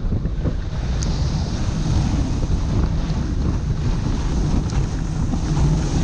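Wind rushing over the microphone of a moving dog sled, a steady noise strongest in the low end, with the sled's runners hissing over the snow.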